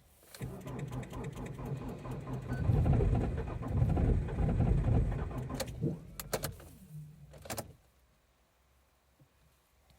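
Ford Focus 2.0 TDCi four-cylinder diesel being cranked by its starter in deep frost, a fast rhythmic churning that grows louder through the middle and then stops after about seven and a half seconds. The engine does not catch: a hard cold start of a diesel at well below freezing.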